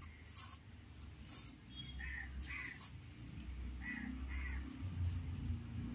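Crow cawing: several short calls, some in pairs, over a low steady rumble.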